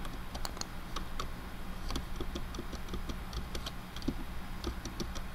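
Computer keyboard keys being tapped in irregular clicks, over a steady low hum.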